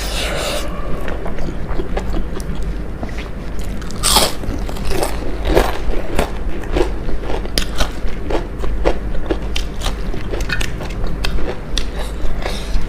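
Close-miked biting and chewing of crisp fried food, with a loud crunching bite about four seconds in and then a run of crunchy chewing, over a steady low hum.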